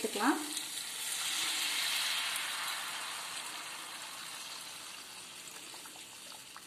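Chickpea cooking water poured into hot oil and fried onion-tomato masala in a frying pan, sizzling as it hits. The hiss swells about a second in, then slowly fades.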